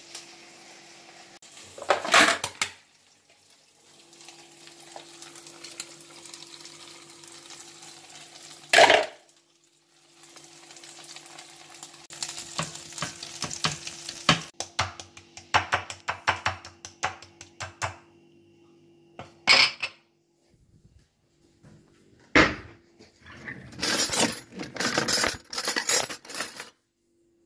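Kitchen handling sounds: a wooden spoon stirring and scraping minced meat in a metal saucepan with a light sizzle, among separate knocks and clatter of pots, containers and cutlery. A steady low hum runs underneath.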